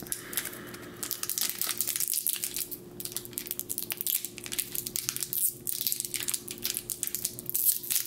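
Foil wrapper of a Pokémon Expedition booster pack crinkling and crackling as fingers work at its hard-to-open sealed top to tear it open, in dense runs of crackles from about a second in, with brief pauses.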